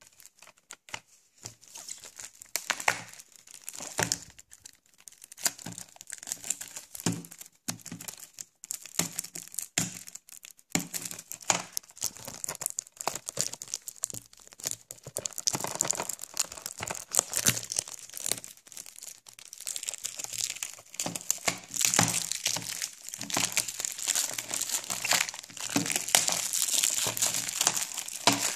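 Plastic shrink-wrap being torn and peeled off a Blu-ray case, crinkling and crackling irregularly, denser and louder toward the end.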